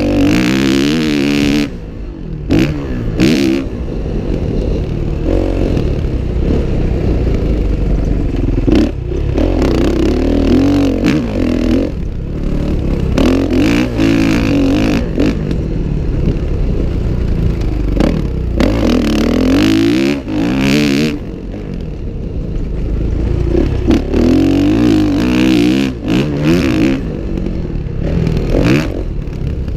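Dirt bike engine revving up and falling back again and again as it is ridden hard around a motocross track, with short knocks and rattles from the bike over bumps.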